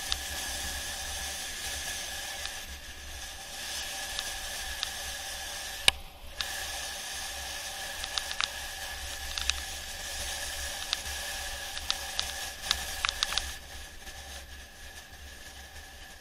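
Rushing air and rolling noise on the camera of a mountain bike coasting downhill on a concrete road: a steady hiss with a faint steady whine, broken by scattered sharp clicks and rattles. There is one hard knock about six seconds in and a quick run of clicks a little before the end.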